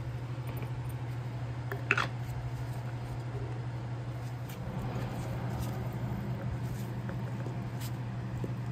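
Steady low hum, with one sharp click about two seconds in and a few faint taps as shock absorber parts are handled.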